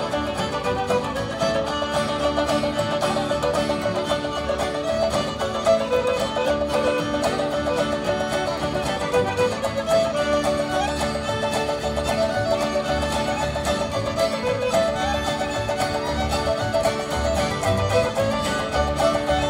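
A string band playing a tune, with a steady beat underneath.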